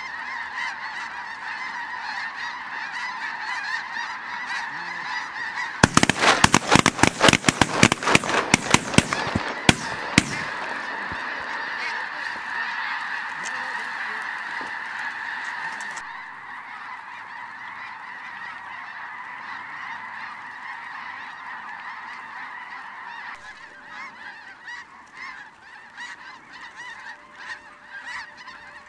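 A large flock of snow geese calling continuously overhead, a dense chorus of honks and yelps. About six seconds in, a rapid run of many loud, sharp cracks lasts some four seconds. After about the middle the calling carries on more quietly.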